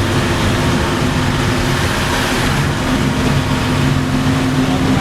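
Vehicle engine running steadily under a constant hiss of road noise while driving.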